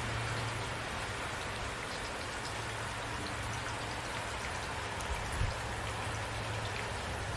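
Steady rainfall with individual drops ticking on a surface, an even hiss with a faint low hum underneath and a brief low thump about five and a half seconds in.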